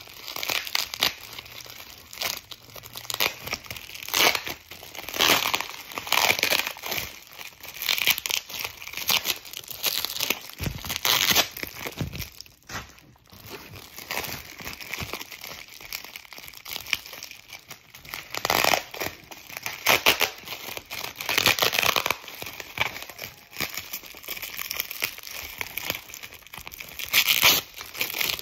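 Clear plastic wrap being crinkled, pulled and torn off a wrapped bundle by hand, in irregular bursts of rustling and crackling.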